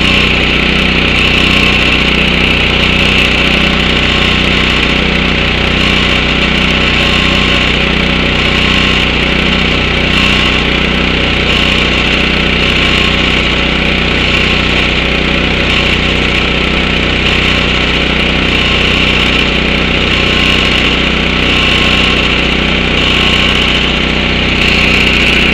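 Portable engine-driven high-pressure breathing-air compressor running steadily under load while it fills a paintball compressed-air tank, with a slow regular swell about every two seconds.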